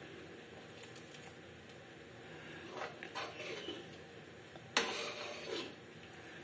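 Steel spoon stirring and scraping thick dal in a metal pan, with one sharp clink of metal on the pan about three-quarters of the way through, followed by a smaller knock.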